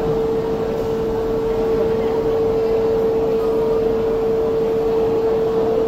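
Funicular station platform with a steady held tone, one unchanging note, over a background hum and faint voices.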